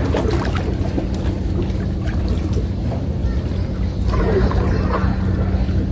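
Boat engine running, a steady low drone with a constant hum.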